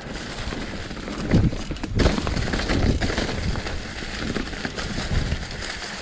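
Mountain bike rolling down a dirt singletrack covered in dry leaves: the tyres crackle through the leaves, with rattles and a couple of louder knocks from the bike over bumps about one and a half and two seconds in.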